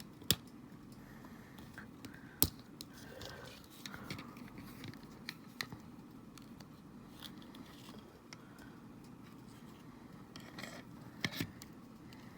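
Faint, scattered small clicks and scrapes of a Joy-Con controller's plastic parts being handled while its ribbon-cable connector latch is picked at, with a few sharper clicks near the start and a cluster near the end.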